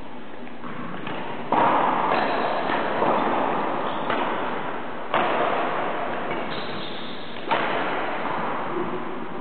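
Badminton rackets striking a shuttlecock back and forth in a rally, about five sharp hits spread over several seconds, each ringing on in the echo of a large sports hall.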